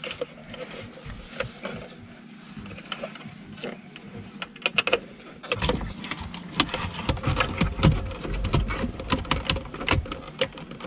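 Scattered small clicks of a car radio head unit and its metal mounting bracket being handled. About halfway in, a louder, busier run of clicks and knocks sets in as the unit is pushed into the dash opening.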